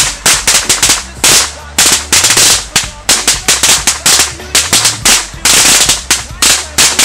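A string of firecrackers going off, a rapid uneven crackle of sharp bangs, several a second, in clusters with short pauses between them.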